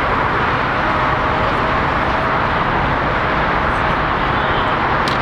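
Steady broad rumble and hiss of aircraft on an airport taxiway, with a faint steady tone in the first couple of seconds.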